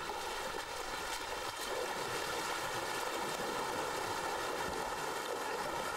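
Steady rush and splash of shallow river water as Asian elephants wade through it.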